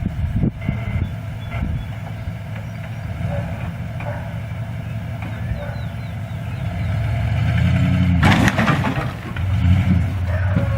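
An engine runs steadily and gets louder from about seven seconds in. Around eight seconds in there is a loud crash lasting about a second.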